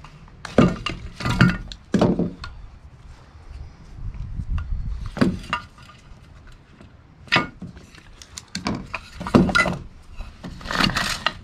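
Irregular light knocks, clicks and clinks of hand tools and a Homelite Super 2 chainsaw's recoil starter housing being handled during reassembly, with a quick cluster of them near the end.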